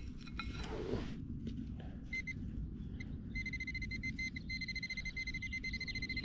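Handheld metal-detecting pinpointer alerting on a target in the dug soil: a few short high beeps about two seconds in, then a steady high-pitched tone from about three seconds on as the tip sits close to the metal, over a low rumble.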